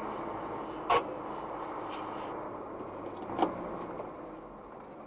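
Engine and road noise of a slow-moving vehicle heard from inside its cab, a steady hum that eases a little near the end, with two short knocks about a second in and about three and a half seconds in.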